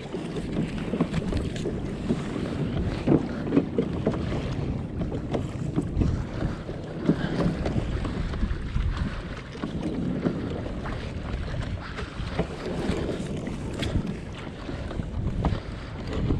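Wind buffeting the microphone over water lapping and splashing around a kayak, with irregular low knocks.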